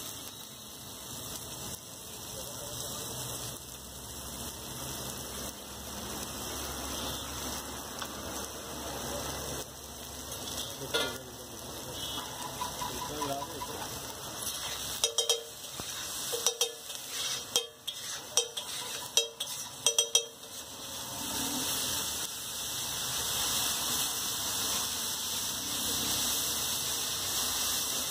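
Chopped onions, tomato and spices sizzling in oil on a flat griddle. About halfway through, a metal spatula strikes and scrapes the griddle in a quick run of ringing clinks as the mixture is chopped and spread.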